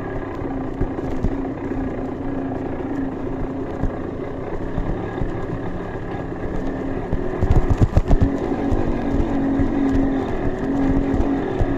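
Trail motorcycle engine running at steady revs, with a cluster of low thumps and rumble about eight seconds in.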